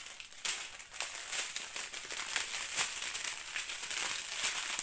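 Crinkling of a strip of small clear plastic zip-lock bags holding diamond-painting drills as it is handled, a continuous run of small irregular crackles.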